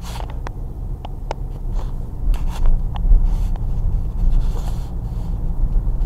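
A car driving, with a steady low road-and-engine rumble and scattered light clicks and ticks throughout.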